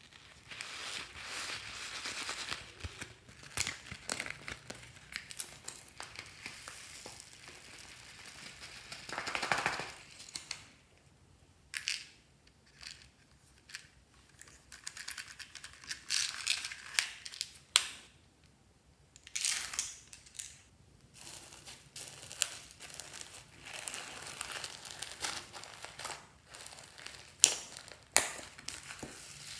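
Hands crinkling plastic and squeezing slime full of foam beads: crackly, crunchy bursts with sharp clicks, broken by short pauses.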